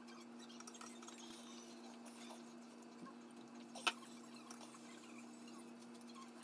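Light clicks and taps of chopsticks against dishes and food, with one sharper click about four seconds in, over a steady hum.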